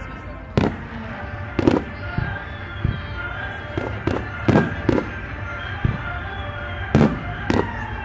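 Fireworks bursting: about a dozen sharp bangs in irregular succession, with music playing underneath.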